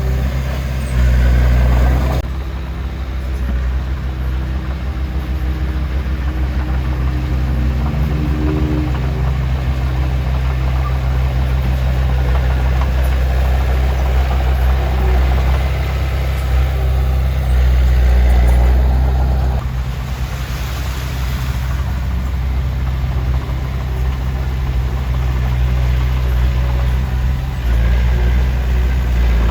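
Heavy diesel earthmoving machinery engine running steadily with a deep hum. Its tone changes abruptly a couple of seconds in, about two-thirds of the way through and near the end.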